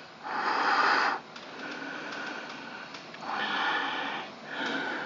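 A man's heavy breathing close to the microphone. He is out of breath from running up and down stairs and has a touch of bronchitis. Three loud, noisy breaths of about a second each, with quieter breathing between.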